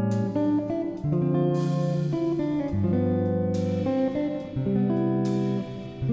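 Background instrumental music led by guitar, with chords changing every second or so and a short bright accent every couple of seconds.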